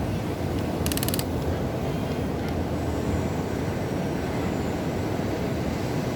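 Huina remote-control excavator's small electric motors and gearboxes running steadily, with a brief fast rattle of clicks about a second in.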